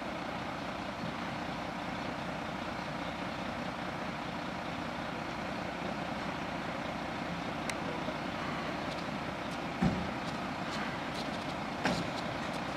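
Fire engine idling with a steady running noise, with two short knocks near the end.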